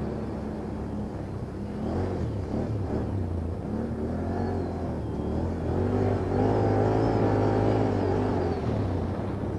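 ATV (quad) engine revving up and down as it drives, with the pitch rising and falling repeatedly and the highest, loudest stretch from about six to eight seconds in.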